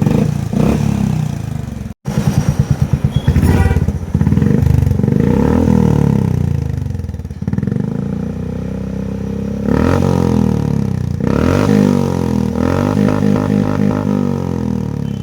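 Honda H'ness CB350's single-cylinder engine running through a freshly fitted aftermarket exhaust with a deep, heavy note, blipped up and back down several times. It ticks now and then, which the owner puts down to an air leak at a joint not yet fully tightened.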